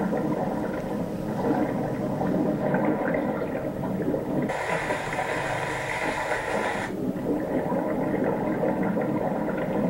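Muffled underwater water sound of a swimmer in a pool, with bubbling; a brighter, hissier rush of bubbles comes in at about the middle for two or three seconds.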